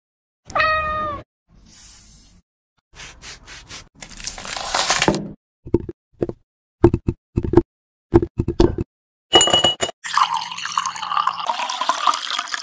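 A run of short, cut-together kitchen sounds: a brief pitched sound near the start, a stretch of running or pouring water, a string of sharp taps, then a longer spell of water-like noise near the end.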